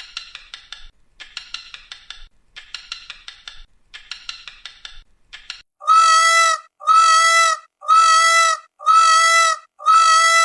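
Animal calls: about five bursts of rapid, raspy chattering, each lasting just under a second, then six identical drawn-out pitched calls repeating about once a second.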